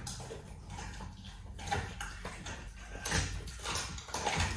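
Big cats, a leopard and a black panther, chewing and tearing at raw meat. The chewing and smacking comes in irregular bursts and is loudest about three seconds in and again near the end.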